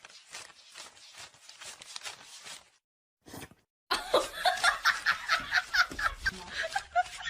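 A rapid run of soft clicks and crunches for a couple of seconds. Then, after a short gap, a person laughs loudly in quick repeated bursts.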